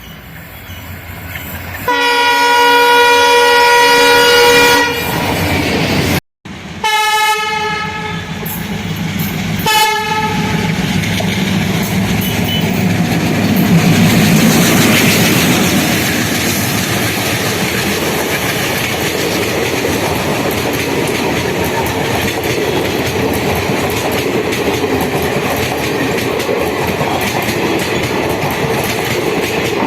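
Twin ALCO WDM3A diesel locomotives sounding a long horn blast about two seconds in, then two shorter blasts, with the sound dropping out for an instant after the first. The locomotives then pass with engines chugging as they accelerate, and the coaches roll by with a steady clickety-clack of wheels over the rail joints.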